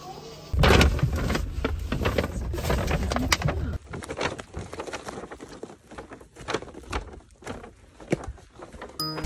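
Footsteps of sandals on stone paving, irregular sharp clicks and scuffs, with a low rumbling noise over the first three seconds.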